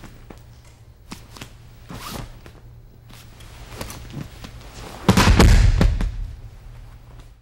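Martial-arts uniforms rustling and feet shuffling on a mat, with a loud thud and rustle of a fall about five seconds in, over a steady low tape hum.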